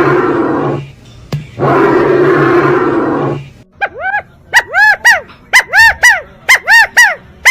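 Bird calls: two long, coarse calls of about two seconds each, then, from about four seconds in, a quick run of short calls, each rising and then falling in pitch, about three a second.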